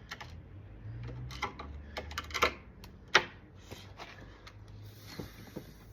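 Small clicks and taps of a screw and screwdriver being handled and set into a door's drop seal, with one sharp knock about three seconds in.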